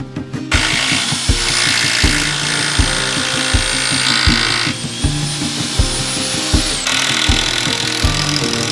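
A power tool running with a steady high whine, which winds down about seven seconds in, over background music with a steady beat.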